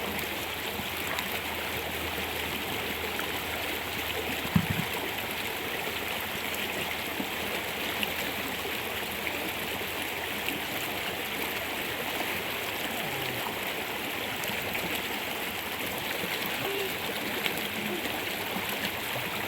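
Steady rushing of water, an even hiss with no change throughout, with a single sharp knock about four and a half seconds in.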